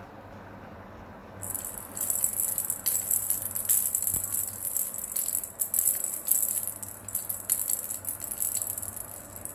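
Plastic baby rattle ball toy shaken in irregular bursts, starting about a second and a half in; a bright, high rattling.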